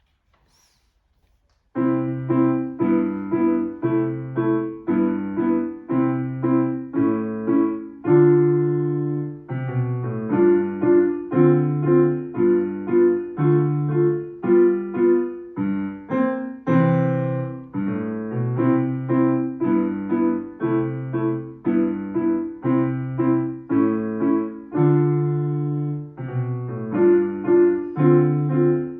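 Solo piano: playing starts about two seconds in, with steady repeated chords over a bass line.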